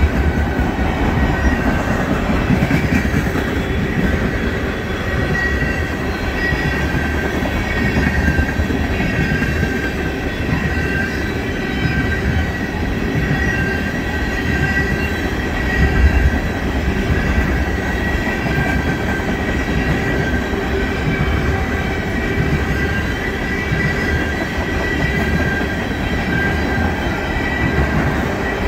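Railroad tank cars of a freight oil train rolling past: steel wheels rumbling and clacking over the rails, with a thin, high wheel squeal that comes and goes.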